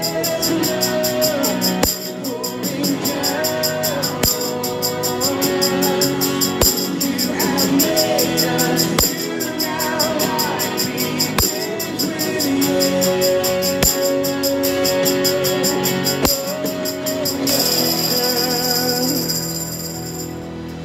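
Steel-jingle tambourine played by hand in a quick, even rhythm along with a worship song's instrumental from a Bluetooth speaker. For the last few seconds the jingles run on as a continuous shake, then stop.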